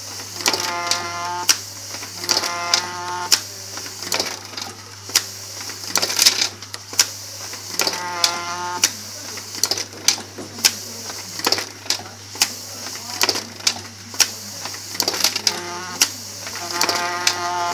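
Paper folding machine running with a steady hum and regular clicking, with a recurring squeak that rises up every few seconds and lasts under a second each time. The squeak is thought to be a dry moving part that may need greasing.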